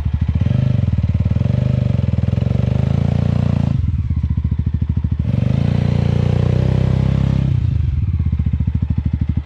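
Mahindra Mojo motorcycle's single-cylinder engine running, revved up and held twice for a few seconds each, dropping back toward idle in between and again near the end.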